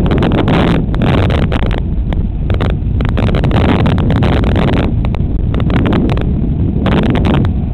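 Wind buffeting the small microphone of a helmet-mounted action camera while cycling: a loud, harsh rumble like static, broken by frequent crackles.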